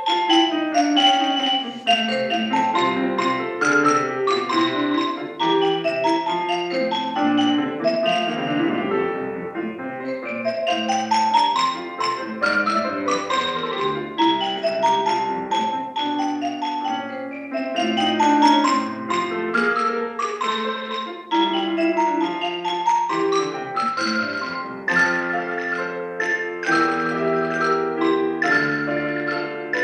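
Mallet percussion played with piano: rapid struck notes in fast runs that sweep up and down, over lower sustained chords.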